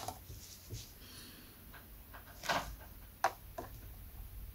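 Faint handling noises of hands on a plastic RC car body: a few light clicks and a brief rub, the sharpest click about three seconds in. A louder sudden sound comes right at the end.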